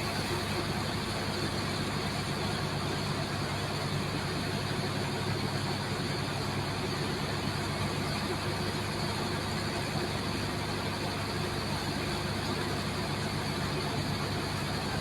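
Steady engine drone with a constant rushing hiss of water over it, typical of a high-pressure water jet cutting into compacted sand.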